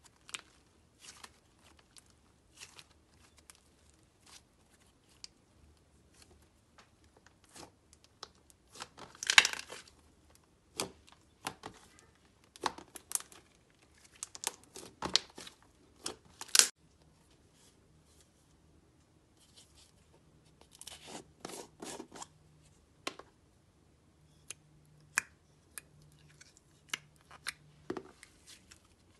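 Thick slime being squished, stretched and folded by hand, giving irregular sticky clicks, pops and crackles. The loudest cluster of pops comes about a third of the way in, with further bursts around the middle and two-thirds through.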